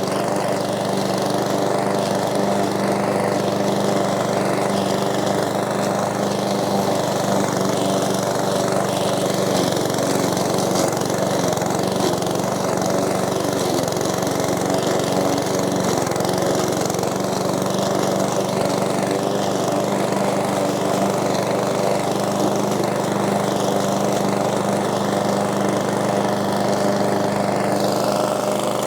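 PowerSmart 170cc four-stroke single-cylinder lawn mower engine running steadily at a constant speed, freshly started.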